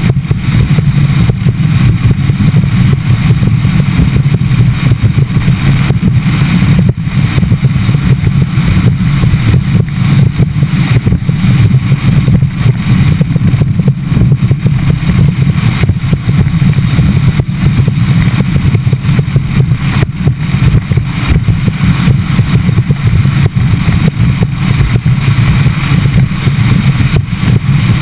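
Bass boat's outboard motor running steadily at cruising speed, a constant low drone with rushing wind and water noise over it.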